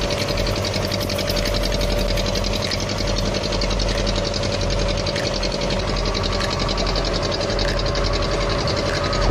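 Fishing boat's engine running steadily while under way, with a fast, even beat and a steady hum.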